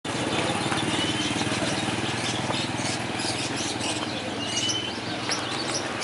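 A motorcycle engine running close by, louder in the first half, under the chirps and calls of many caged birds, with two short level whistles standing out.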